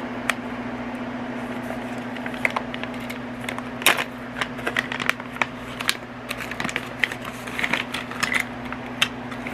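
Scattered rustling and clicking of packaging being handled as a diamond painting toolkit is opened, over a steady low hum.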